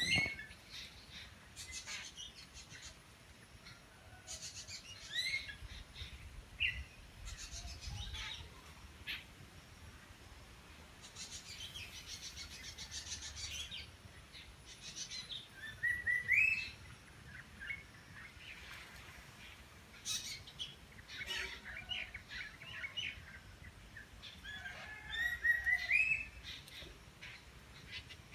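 Asian koel and other birds calling in trees: scattered chirps and trills, with a short rising whistled call about halfway through and again near the end.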